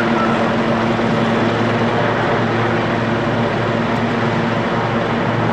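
Helicopter running on the ground with its main rotor turning, a loud, steady engine-and-rotor drone with a constant low hum.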